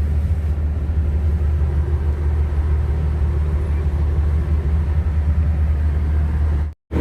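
Steady low engine rumble, with a brief dropout to silence near the end.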